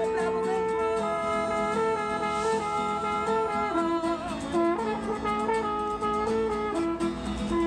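French horn playing a melody of held notes over a strummed acoustic guitar.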